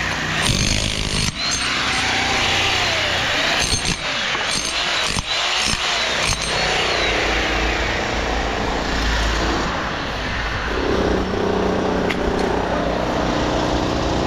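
Loud, steady machinery noise with an engine-like hum and scattered sharp knocks; the hum drops lower and steadier about eleven seconds in.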